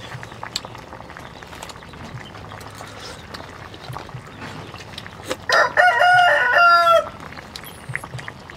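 A rooster crows once, about five seconds in: one loud call lasting about a second and a half. Before it come faint spoon clinks on a bowl and soft sips.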